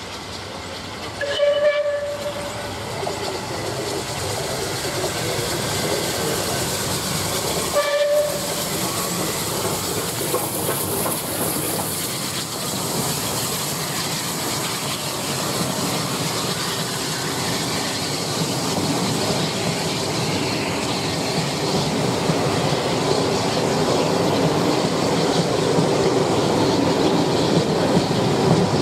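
Bulleid Battle of Britain class steam locomotive 34067 Tangmere passing at speed, sounding two short whistle blasts about a second and a half and eight seconds in. Then the passing train's running noise, with the coaches clattering over the rails, growing louder toward the end.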